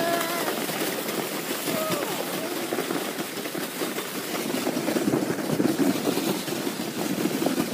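Sled sliding fast downhill over snow: a steady rushing scrape mixed with wind buffeting the microphone, swelling about five seconds in. A child gives a couple of short squeals in the first two seconds.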